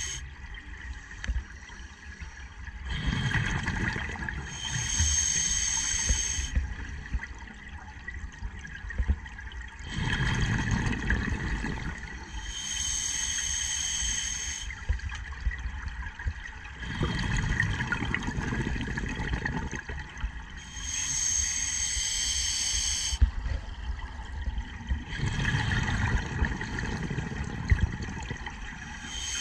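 A scuba diver breathing through an open-circuit regulator underwater: a rush of exhaled bubbles, then a hissing inhalation, repeated about every eight seconds, four times.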